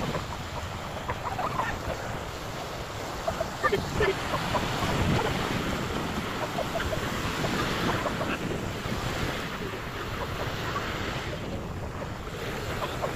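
Sea surf washing on a beach, with wind blowing across the microphone.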